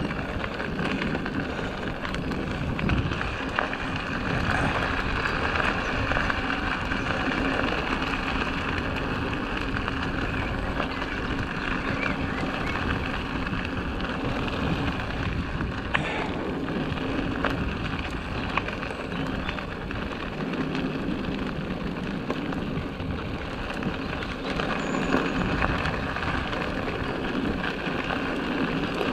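Orbea Rallon mountain bike riding along a dirt track: steady rolling noise of the tyres and the bike's rattle, with an occasional sharp click.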